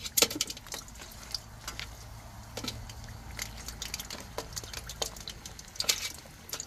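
Hot oil in a wok crackling and spitting as steamed chicken feet are added for deep-frying, with irregular sharp pops throughout.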